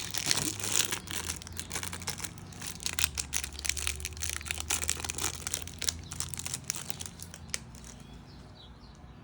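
Foil booster pack wrappers crinkling and cards being handled: a dense run of crackles that thins out and fades over the last couple of seconds.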